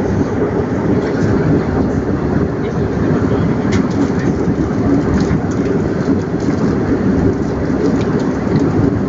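Steady roar of an Airbus A319 cabin in flight: engine and airflow noise, with a few light clicks from the meal tray being handled.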